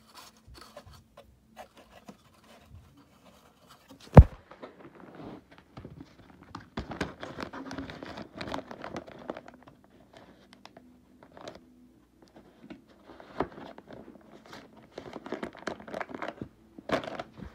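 Handling noises while a dust bag is fitted into the bag compartment of a Eureka Victory upright vacuum: scattered scraping, rustling and crinkling with short pauses, and one sharp knock about four seconds in.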